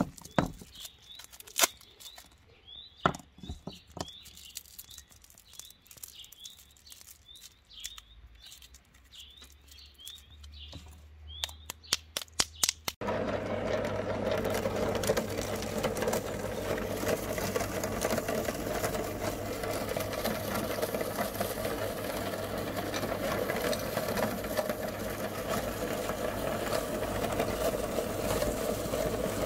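Scattered clicks and light handling noise from wrapped lollipops, with short bird chirps behind them. Almost halfway through, a cast-iron meat grinder starts suddenly and runs steadily, crushing hard-candy lollipops into crumbs.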